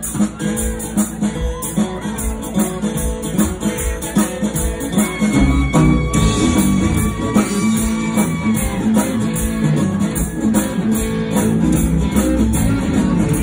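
A live country band plays through a PA: acoustic and electric guitars over a steady drum beat.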